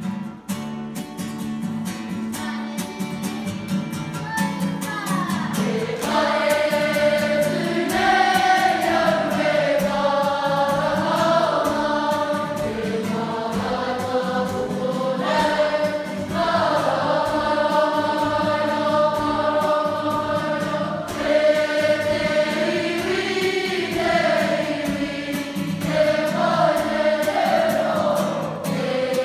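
A large group of young voices singing a Māori action song together in unison, getting louder and fuller about six seconds in.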